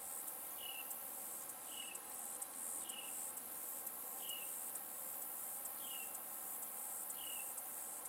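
A steady, high, pulsing chorus of insects, with a short high chirp that falls in pitch repeating six times, about every second to second and a half.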